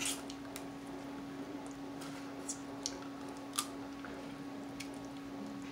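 Scattered sharp clicks and small crackles of cooked Dungeness crab shell being picked apart with crab picks and fingers, with soft wet squishing, over a steady low hum.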